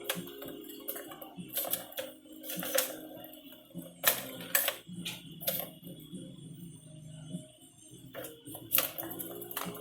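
Background music with sustained low notes, overlaid by irregular sharp clicks and taps, the loudest about four seconds in and again near the end.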